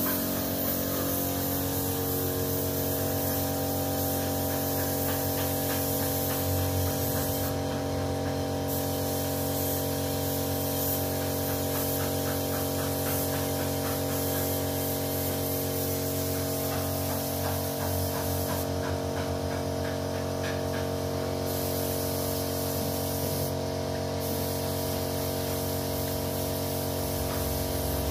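Compressed-air paint spray gun hissing steadily as it sprays paint, with an air compressor running underneath as a steady hum. The hiss drops out briefly a few times as the trigger is let go.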